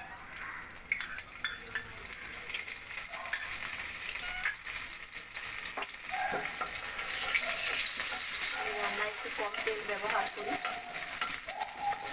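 Mustard oil sizzling as it heats in a non-stick wok, the hiss growing over the first few seconds and then holding steady, with a few light knocks of a utensil against the pan.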